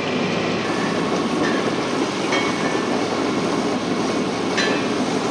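A sailboat running under engine power: the motor's steady drone under an even rushing of wind and water.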